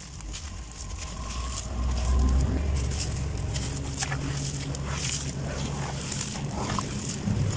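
Gritty crunching and crackling as hands crumble dusty grainy bajri (sand) chunks into a metal basin of water and churn them into a wet slurry, with sloshing. Under it runs a steady low rumble that swells about two seconds in.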